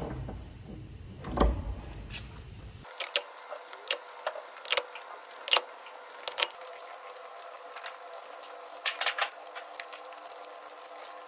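A cylinder head of a Mercedes OM 460 diesel set down onto its gasket on the block with a heavy thud about a second and a half in. Then a run of sharp metallic clinks as the new head bolts are set in place.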